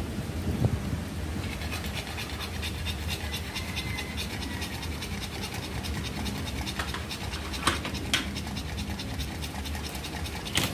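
Pug bitch panting hard and fast with her mouth open while whelping. A few sharp clicks come a little after halfway and near the end.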